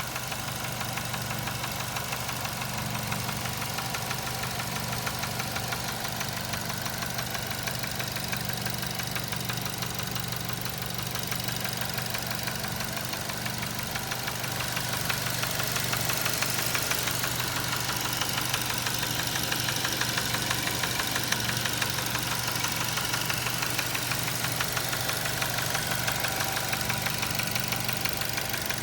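Nissan Tiida 1.6-litre four-cylinder petrol engine running with a rapid, steady knock, slightly louder about halfway through. The owner judged the knock beyond repair and replaced the engine.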